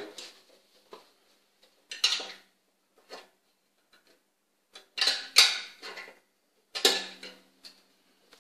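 Metal hooks of elastic bungee cords clanking against the painted steel frame of a ski-simulator platform as the cords are hooked on. Several separate clanks, the loudest cluster about five seconds in, the last leaving a short metallic ring.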